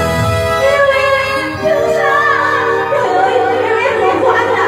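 A woman singing into a microphone over live band accompaniment, her voice amplified.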